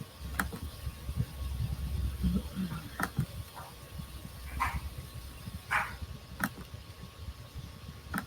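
Computer mouse clicking a few separate times, with a couple of short scraping sounds between the clicks and a low rumble in the first few seconds.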